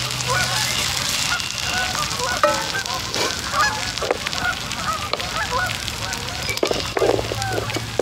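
A flock of geese honking: many short overlapping calls, with a few louder ones standing out.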